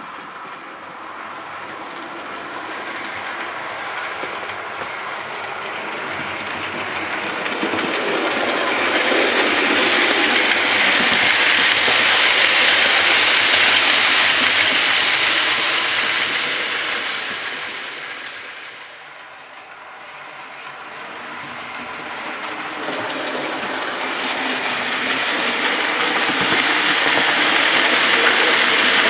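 OO gauge model train, a Hornby Railroad LNER P2 locomotive hauling four teak coaches, running on the track with a steady rattle of wheels on rails. It grows louder as the train passes close, falls away to a low point about two-thirds through, then builds again as the train approaches once more.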